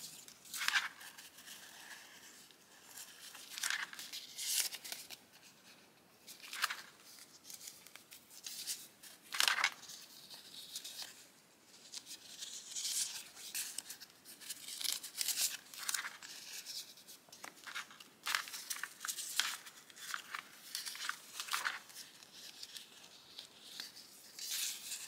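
Paper rustling and crinkling in short, irregular strokes as hands sort and shuffle strips of printed paper stamp ephemera.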